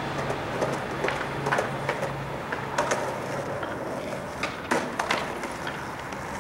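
Skateboard wheels rolling on pavement, with several sharp clacks of the board.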